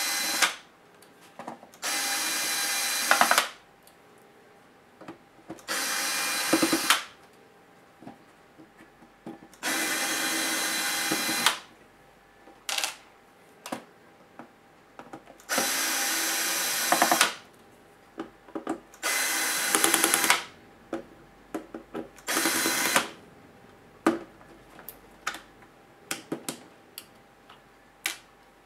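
Electric screwdriver whirring in short runs of one to two seconds, about six times, backing screws out of a laptop's plastic bottom case. Light clicks and taps come between the runs. The last few seconds hold only clicks.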